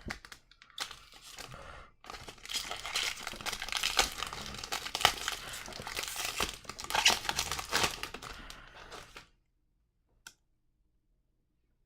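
A hockey card pack wrapper being torn open and crinkled, with many small crackles, for about nine seconds, then it stops.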